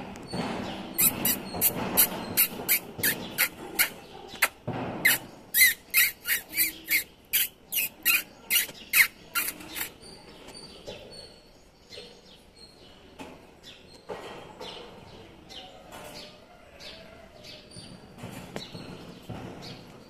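A bird chirping, a quick run of sharp, high chirps at about two or three a second for about nine seconds, then fainter scattered chirps. Under it, kittens' paws scamper and thump on the wooden floor, with one heavier thump about four and a half seconds in.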